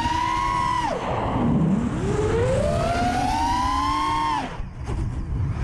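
FPV racing quadcopter's motors and propellers whining, the pitch climbing as the throttle is pushed and falling away sharply when it is cut, twice, over a low rumble of air. After the second cut there is a short lull.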